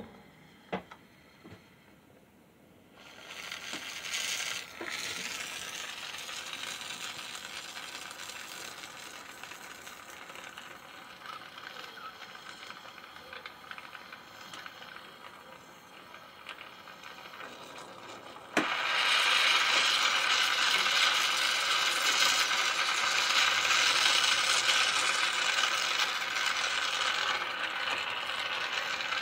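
A few small clicks, then a gas torch hissing steadily as its flame heats the crucible of the centrifugal casting machine to melt the gold for the cast. About two-thirds of the way through the hiss jumps suddenly louder and stays up, as the flame is turned up.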